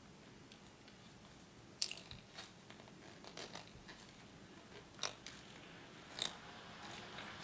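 A few faint, scattered clicks and snips from small hand tools and wiring parts being handled.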